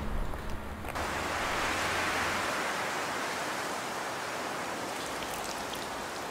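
Steady rain hiss that comes in suddenly about a second in, with scattered faint drop ticks later on, while a low rumble fades away at the start.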